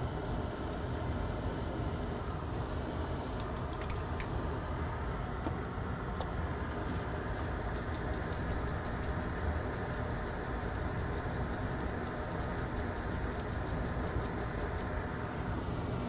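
Rapid, scratchy scrubbing and wiping on a circuit board, cleaning flux off freshly soldered connector pins. It is heaviest from about halfway through to near the end, over a steady low background noise.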